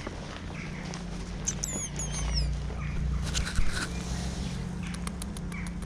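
A steady low hum, with a bird's short falling chirps repeated a few times about one and a half seconds in, and a quick run of light clicks near the end.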